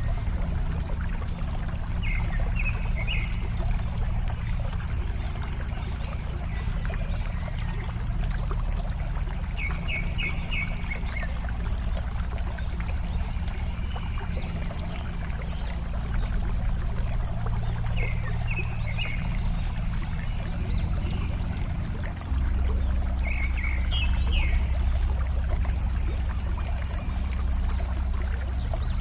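Water flowing and trickling steadily. A bird gives a short run of high chirps four times, about every seven or eight seconds.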